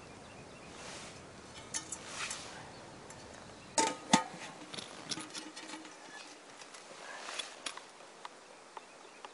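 Metal camp cookware clinking: a few sharp clanks as the metal cook pot is handled and set down, the two loudest about four seconds in ringing briefly, then lighter ticks of a spoon working in a mug.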